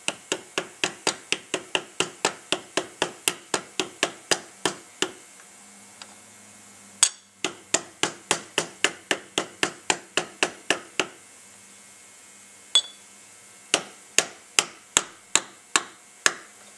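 Small ball-peen hammer tapping lightly on a punch, about three quick metallic taps a second, to seat the filter screen in the cover of an AC dual-action mechanical fuel pump. The tapping comes in three runs with short pauses between them.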